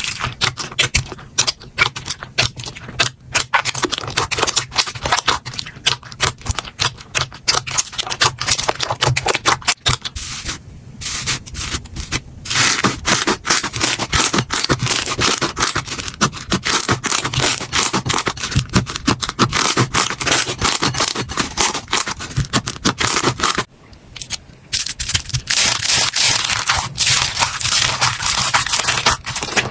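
Hands working slime: dense crackling, sticky clicking and rubbing as it is pressed, squished and stretched, with short breaks about eleven and twenty-four seconds in.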